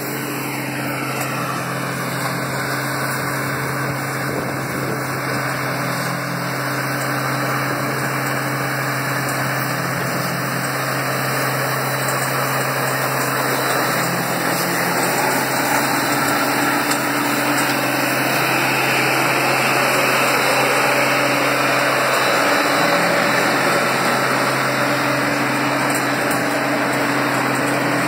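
Engine of heavy construction machinery running steadily: a constant low hum under a dense mechanical noise, growing slightly louder over the stretch.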